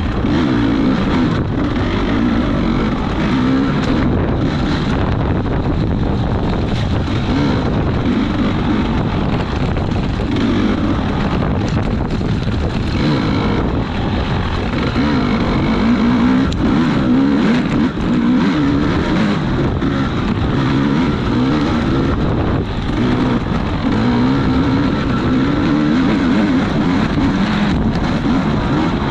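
Small off-road racing engine running hard, its pitch rising and falling again and again as the throttle opens and closes.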